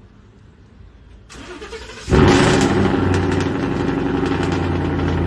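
A vehicle engine starts about two seconds in and then runs loudly and steadily.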